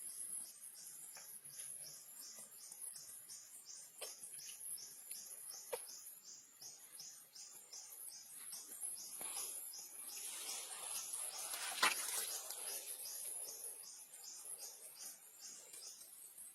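Insects calling: a regular high chirp about twice a second over a steady high-pitched buzz. A rustling swell with a sharp click comes about two-thirds of the way in.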